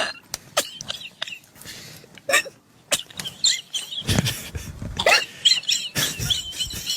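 A man's wheezing laughter: short gasping breaths broken by high, squeaky wheezes that bend up and down in pitch, with a few louder gasps partway through.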